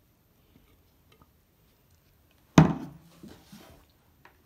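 A large plastic drinking cup set down with one sudden, loud thump a little past halfway, followed by a few fainter knocks and a small click near the end.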